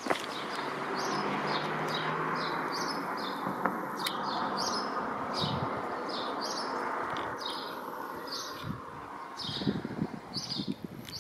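A small bird calling a quick series of short, high chirps, about two a second, over a steady rushing background. Footsteps come in near the end.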